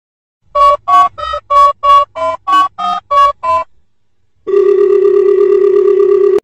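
Telephone keypad beeps, about ten short tones in quick succession, each a steady pitch, then after a short pause a long steady tone like a phone line tone, dubbed as a sound effect for pressing a puppy's paw pads.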